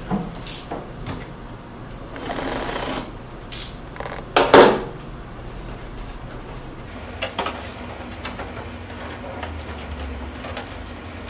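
Packing tape on a cardboard box being slit and pulled open: scraping and rasping with crackles of tape and cardboard, one loud sharp crack near the middle, and scattered clicks and taps later on.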